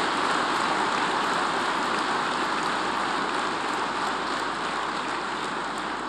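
Large audience applauding in a big hall: a dense, steady clatter of many hands clapping, which begins to die away near the end.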